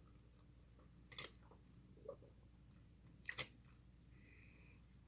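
Faint mouth sounds of eating a blueberry cheesecake pancake stack: quiet chewing with a few short, sharp clicks, one about a second in, a softer one about two seconds in and a close pair a little after three seconds.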